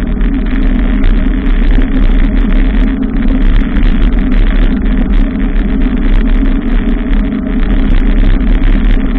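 Steady, loud rumble and rush of riding a bicycle through city streets, with road noise from traffic.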